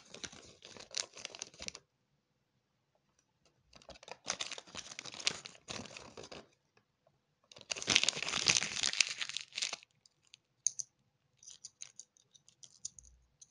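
Crinkling and tearing of a Kinder Surprise toy's thin wrapper and paper instruction leaflet as they are handled, in three bursts, the loudest about eight seconds in. A few light plastic clicks follow near the end as the small toy is handled.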